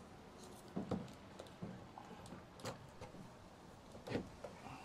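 A few light clicks and knocks, about four, spaced irregularly: handling noise as the RV's power cord is plugged into the Cybertruck's outlet.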